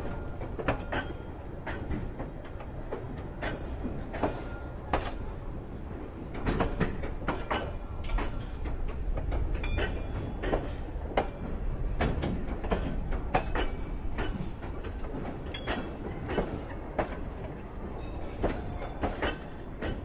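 Diesel train moving slowly out of a station: a steady low rumble with the wheels knocking over the rail joints at an uneven beat, about one or two knocks a second. The rumble swells in the middle.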